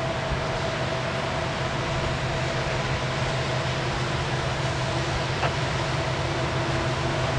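Diesel locomotive engines of an approaching Norfolk Southern freight train, a steady low drone with a hum over a haze of noise.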